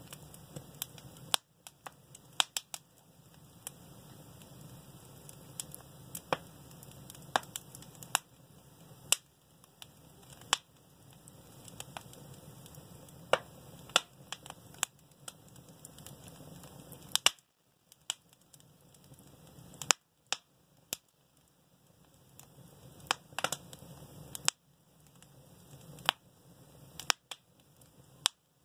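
Wood fire in a fireplace crackling, with sharp, irregular pops every second or so, some in quick clusters, over a faint steady hiss.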